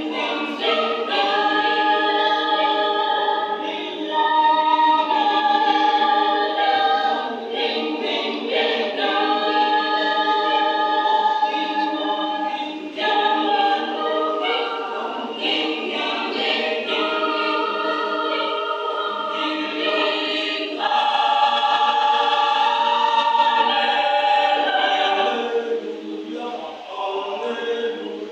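Youth choir singing in harmony, with long held chords in phrases that break off every few seconds; the singing grows quieter near the end.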